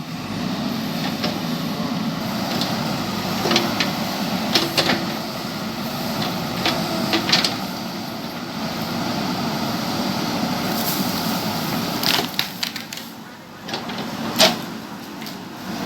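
Backhoe loader at work on a road build: a steady low machine hum with scattered sharp knocks and cracks, as of stones and rubble striking.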